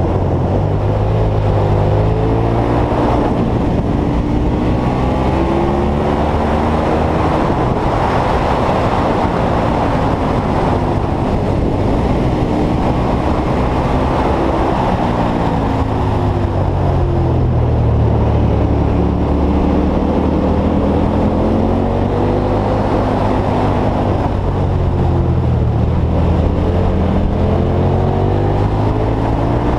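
Motorcycle engine on the move, its revs rising and falling again and again through the bends, over a steady rush of wind.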